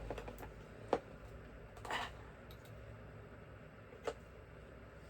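Small sharp clicks from screwdriver bits being handled and pushed into their holder, one about a second in and another about four seconds in, with a short scrape near two seconds.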